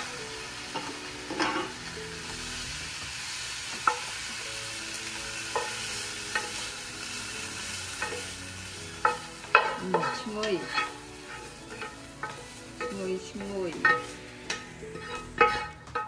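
Shrimp stir-frying in hot oil in a pan: a steady sizzle, with the spatula clicking and scraping against the pan. The strokes come thicker from about nine seconds in.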